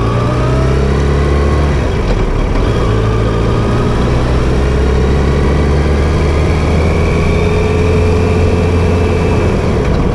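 Motorcycle engine running as the bike rides along at street speed, heard from the rider's position with road noise; the engine note changes briefly about two seconds in, then holds steady with a faint slowly rising whine.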